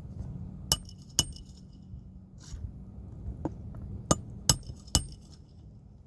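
Five sharp clinks of hard objects striking, each with a brief high ring: two less than a second apart near the start, then three in quick succession about four to five seconds in.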